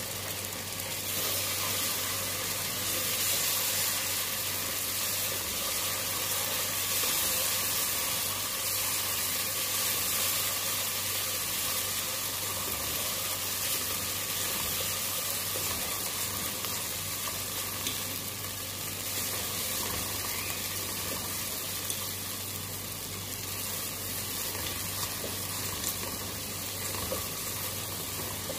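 Onions and grated carrots with freshly added tomato paste sizzling steadily in oil in a pot, stirred now and then with a wooden spatula.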